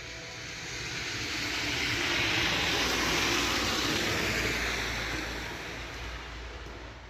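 A rushing, rumbling noise from the sky that builds for about three seconds, then fades away over the next four, with no clear pitch to it.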